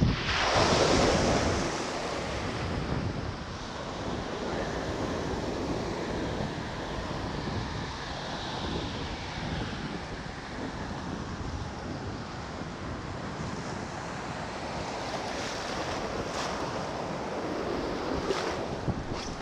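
Ocean surf breaking and washing up the beach, with wind buffeting the microphone. A wave breaks near the start, the loudest moment, then the wash and wind go on steadily.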